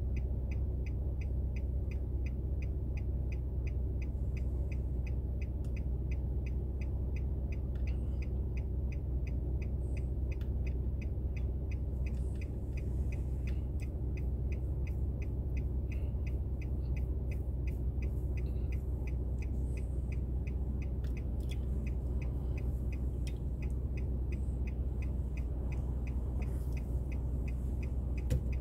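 Car interior while driving: a steady low rumble of engine and road, with an even ticking of about three ticks a second running through it.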